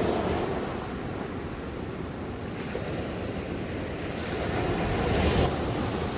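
Ocean waves washing onto a shore: one wash fades away early, then the next wave builds and breaks about five seconds in.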